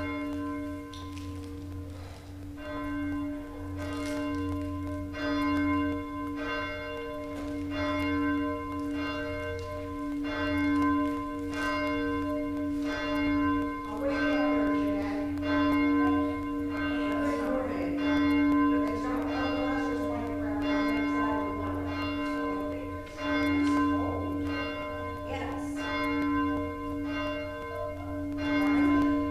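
A single church bell tolling, struck evenly about every second and a quarter, each stroke ringing on into the next.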